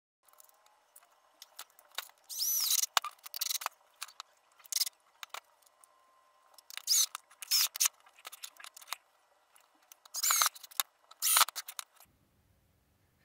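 Cordless drill-driver running in several short bursts, driving screws into plywood, with the motor's pitch bending as each screw seats. Light clicks and knocks between the bursts.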